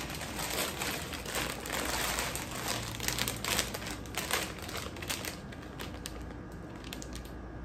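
Plastic snack bag of roasted peanuts crinkling as it is handled and turned over, busy for about five seconds and then quieter.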